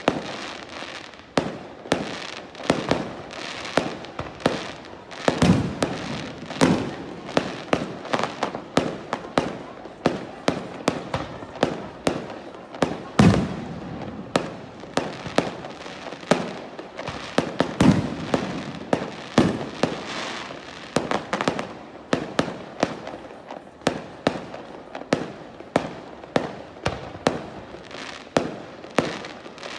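Aerial fireworks going off in a rapid, irregular barrage of bangs and crackles, several a second, with a few heavier deep booms standing out.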